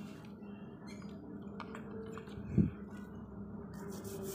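Faint steady hum with a few light ticks and one dull knock about two and a half seconds in, from handling a motorcycle's rear wheel and chain.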